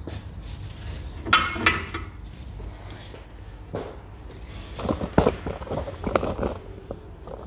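Metal clunks and knocks as a car driveshaft with its outer CV joint is pushed and worked into the wheel hub: two ringing knocks about a second and a half in, then a quicker run of knocks from about five to six and a half seconds.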